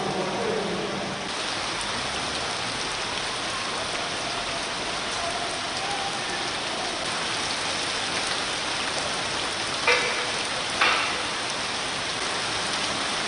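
Hailstorm: hailstones and rain pelting the ground in a dense, steady patter of small impacts. Two louder knocks come about a second apart near the end.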